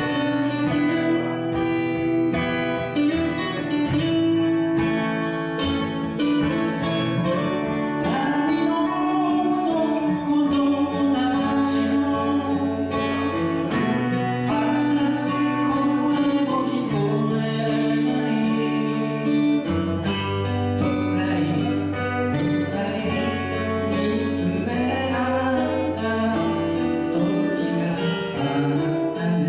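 Live acoustic folk song: acoustic guitars playing chords under a sung melody.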